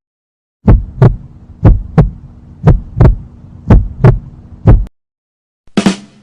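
Heartbeat sound effect: about five double lub-dub thumps, one pair a second, over a faint steady hum. It is followed by a couple of short clicks near the end.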